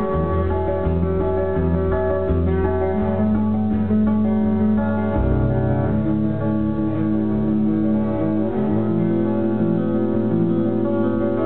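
Amplified acoustic guitar played solo, a continuous instrumental passage of ringing notes over low bass notes that change every second or so.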